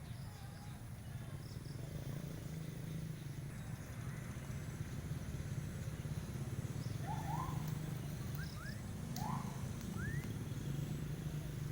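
Several short, rising bird chirps in the second half, over a steady low rumble.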